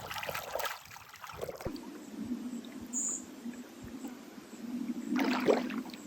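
Lake water splashing and sloshing around a person wading in, with a cluster of splashes in the first second and a half and another about five seconds in. There is a short high chirp about three seconds in.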